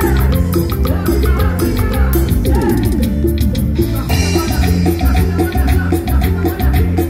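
Live band music played loud through a PA, with a steady, rhythmic drum and bass beat for dancing. The sound turns brighter, with a hissing high layer, about four seconds in.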